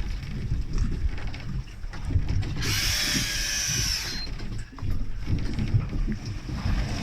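Electric deep-drop fishing reel winding line in with a steady motor whine, over low rumble from the boat and wind. About two and a half seconds in, a brighter hiss rises for over a second and then stops.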